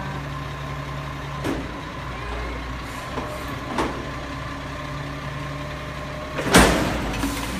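Automated side-loader garbage truck's engine running steadily while its hydraulic arm lifts a wheeled trash cart, with two light clanks and then a loud bang near the end as the cart is tipped over the hopper.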